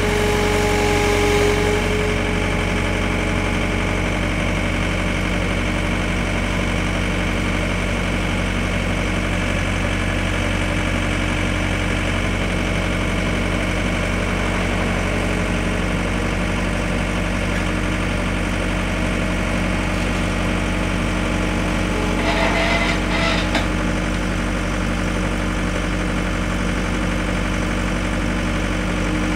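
John Deere 317 skid steer's diesel engine running steadily at an even speed while the machine works its loader forks. A short higher-pitched sound comes near the start and another about three quarters of the way through.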